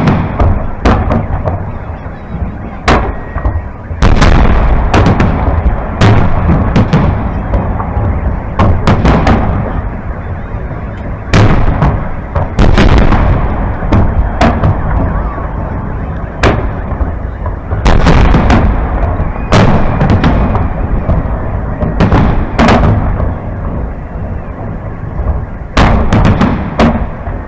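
Aerial firework shells bursting overhead in a rapid series of loud bangs, about one a second, each trailing off in an echoing rumble.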